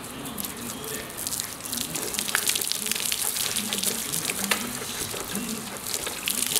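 Water from a garden hose splashing onto motorcycle bodywork while a hand brush scrubs it: a steady hiss with many small splashes.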